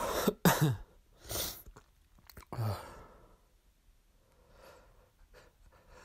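A person sneezing: a run of short sneezes and sneeze gasps in the first three seconds, the loudest about half a second in, then faint.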